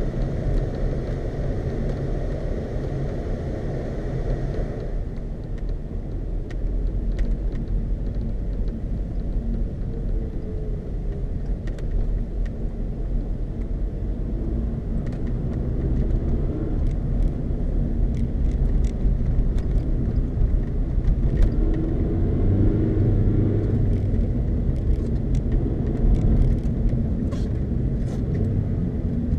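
Car engine and tyre noise heard from inside the cabin while driving on snow-covered road: a steady low rumble with some rise and fall, faint clicks, and a hiss that stops suddenly about five seconds in.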